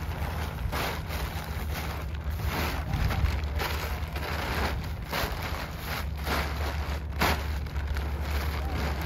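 Large sheet of synthetic tent fabric rustling and crinkling in repeated swishes as it is bunched and stuffed by hand, over a steady low rumble of wind on the microphone.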